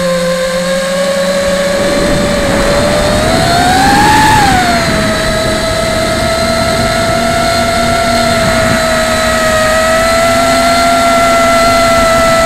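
Brushless motors and propellers of a Martian 2 FPV quadcopter whining, heard through its onboard action camera's microphone with a rushing noise of air beneath. The pitch rises briefly about four seconds in as the throttle goes up, then settles back to a steady whine.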